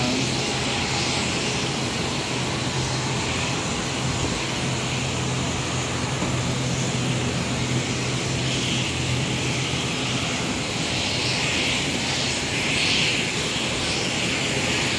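Jet airliner noise on the apron: a steady drone with a constant low hum and a hissing rush that swells slightly now and then.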